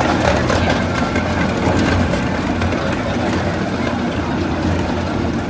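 Ride-on railroad train running along its track, a steady rumble with no let-up.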